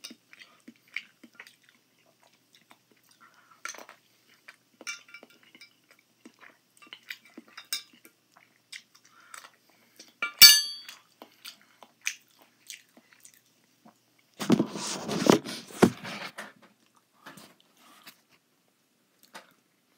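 Eating with a metal spoon from a glass baking dish: small scrapes and clicks of the spoon against the glass with chewing in between. About ten seconds in the spoon strikes the dish once with a sharp ringing clink, and around fifteen seconds in there is a louder two-second burst of rustling.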